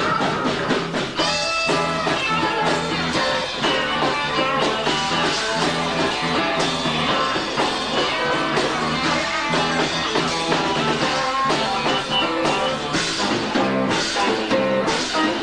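Live rock band, two guitars, bass and drums, playing an instrumental stretch of a song with no singing.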